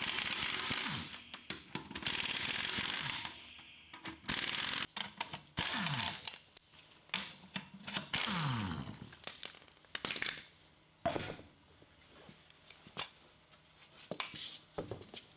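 Pneumatic impact wrench hammering the lug nuts loose on a tractor's rear wheel in several bursts, its pitch falling as it spins down after some of them. Sharp metallic clinks follow over the last few seconds.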